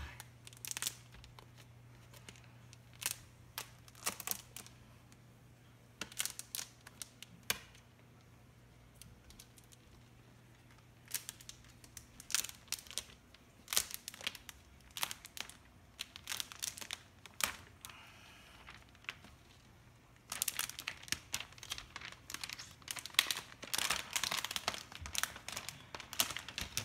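Thin plastic protective film being peeled off an iMac's glass screen, crinkling and crackling in irregular bursts, with a long unbroken stretch of crinkling near the end.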